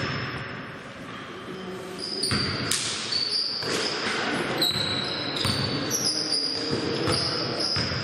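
A basketball bouncing on a gym court, with a run of short, high squeaks from players' shoes on the floor as play moves up the court.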